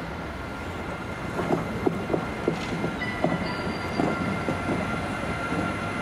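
Siemens Vectron electric locomotive passing close by, running light, with its wheels clicking and knocking over the rail joints and a steady high whine, joined by a second higher tone about halfway through.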